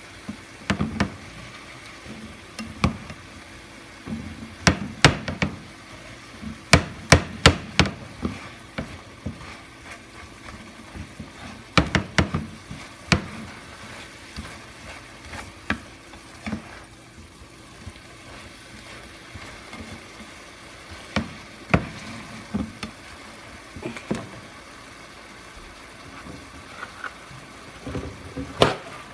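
Kitchen clatter: sharp knocks and clacks of cookware and utensils being handled, coming in short clusters, over a faint steady hum.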